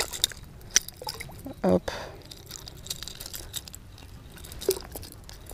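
A small pike splashing at the surface as it is lifted out of the water by hand, water dripping back into the lake, with a few sharp clicks.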